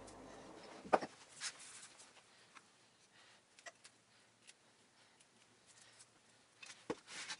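Faint handling sounds of raw steaks being seasoned and pressed by hand in a metal bowl: a few scattered soft clicks and taps, the loudest about a second in and another near the end.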